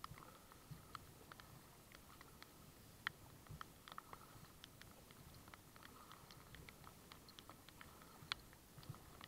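Faint, irregular tapping of raindrops and water drops: several small ticks a second, with a sharper tap about three seconds in and another near the end.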